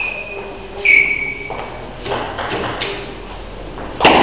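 Celluloid table tennis ball bouncing with a ringing ping, twice in the first second, then a sharp loud hit near the end as a rally gets under way.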